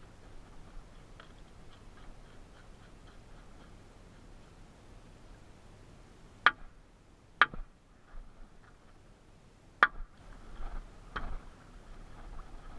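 Faint light ticking, then sharp knocks: two about a second apart halfway through, a third two seconds later, and a duller one near the end.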